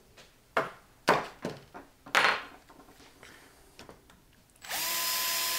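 A few scattered knocks of hammer and metal punch on the deadbolt. Near the end an electric drill starts up with a short rising whine, then runs at a steady pitch.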